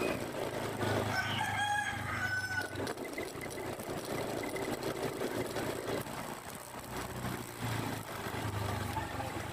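A rooster crows once, about a second in, for roughly a second and a half. Under it runs the low, steady hum of an engine.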